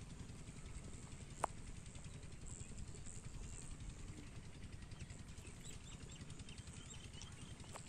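Quiet outdoor background: a steady low rumble with faint bird chirps, and one sharp click about a second and a half in.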